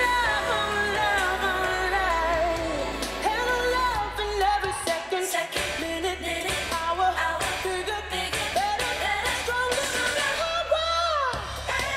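Pop song with a lead singing voice over a beat and bass, playing continuously as dance-routine music.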